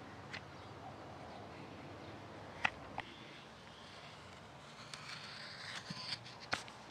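Morakniv 106 sloyd knife slicing thin shavings from an alder spatula handle: single sharp cutting clicks near the start and about two and a half and three seconds in, then a quick cluster of clicks with a brief rasping cut over the last two seconds.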